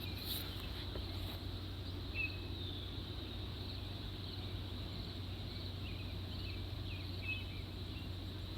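Insects buzzing steadily on one high pitch, with a few short bird chirps about two seconds in and again near the end.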